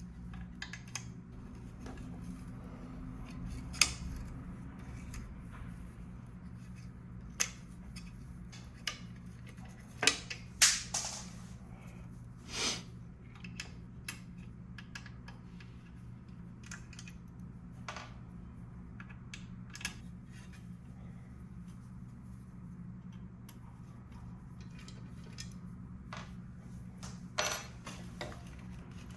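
Irregular clicks and clinks of hand tools and metal parts being handled while working on an electric scooter's front wheel, a handful of them sharper knocks. A steady low hum runs underneath.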